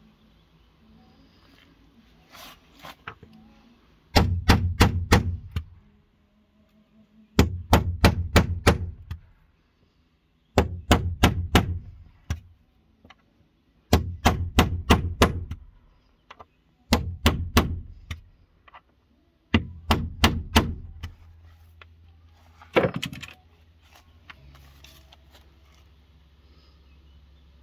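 A hammer strikes a steel hole punch set over flush nail heads in wooden panelling, driving the punch into the wood around each head. There are six quick bursts of four or five sharp blows with pauses between, then a single blow near the end.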